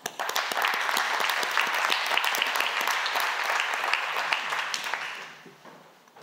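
Audience clapping, starting at once and fading out after about five seconds.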